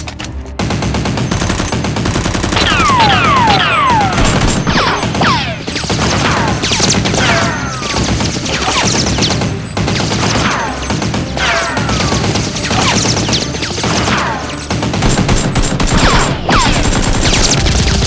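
Sustained rapid automatic gunfire, a dense volley of shots with no break, overlaid by repeated falling whistling whines like bullet ricochets.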